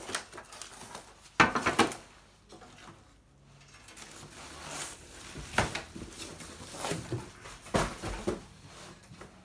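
Wooden knocks and clatter from a folding bamboo laptop table being handled and set down, with cardboard packaging rustling. The loudest is a cluster of knocks about a second and a half in, followed by single knocks in the middle and near the end.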